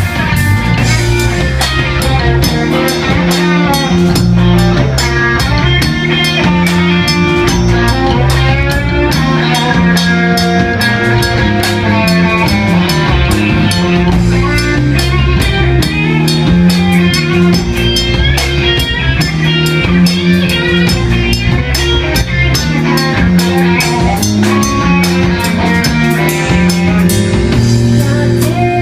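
Rock band playing an instrumental passage on electric guitar, bass and drum kit.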